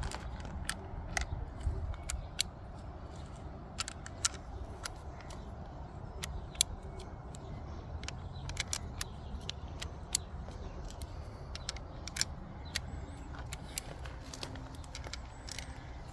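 Irregular sharp metallic clicks of an Umarex Colt SAA .177 CO2 revolver's cylinder being turned at half cock while cartridges are pushed in one by one through the loading gate, over a steady low rumble.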